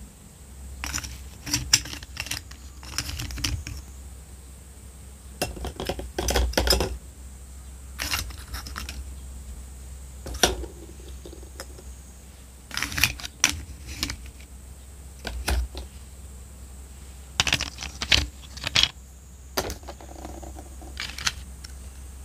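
Small plastic toy food pieces picked up and set down on plastic toy plates and a tray, giving light clicks and clatters at irregular moments.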